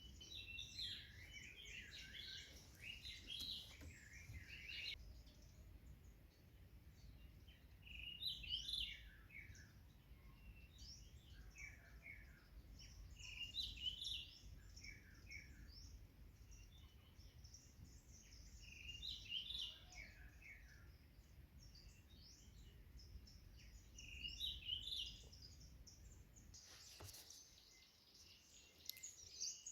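Songbirds singing in a forest: short chirping song phrases repeated every few seconds, over a faint low rumble.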